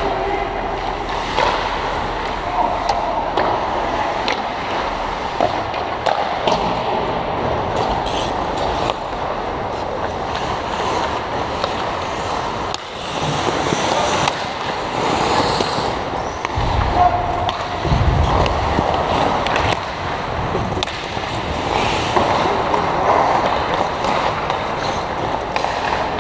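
Ice hockey play close to the goal: skate blades scraping and cutting on the ice, with sticks and puck clacking and occasional distant shouts from players. A few heavier low knocks come about two-thirds of the way through, while the play is around the net.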